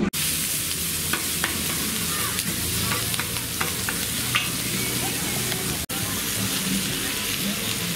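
Food sizzling on a hot cooking surface: a steady hiss with scattered small pops and crackles, broken by a momentary dropout about six seconds in.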